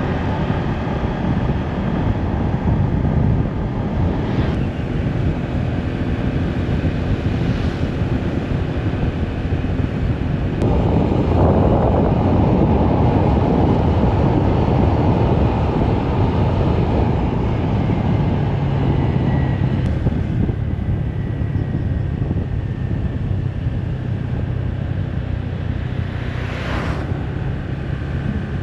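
Wind rushing over the microphone of a motorbike rider, over the low running of the motorbike's engine and road noise; the wind gets louder for about ten seconds in the middle.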